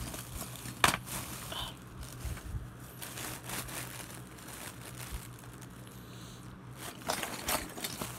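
A thin plastic bag crinkling and rustling as a hand rummages through loose Lego pieces inside it, with a sharp click about a second in.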